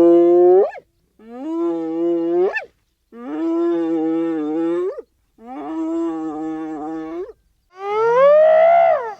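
Hyena giving five long calls in a row, each separated by a short pause. The first four hold a steady pitch and sweep upward at the end; the last rises and falls in an arch.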